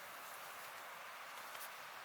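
Faint, steady hiss of background noise, with a tiny click about one and a half seconds in.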